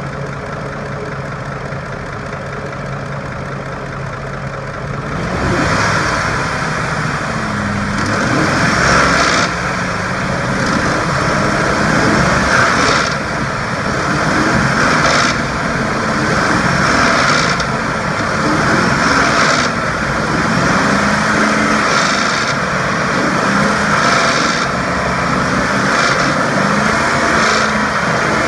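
A 2004 Ford F-150's 5.4L V8 idles, then is revved again and again, roughly every two seconds, with the throttle let off after each rev. Letting off the gas around 2300–2500 rpm brings a rattling noise, which turned out to be a broken timing chain tensioner.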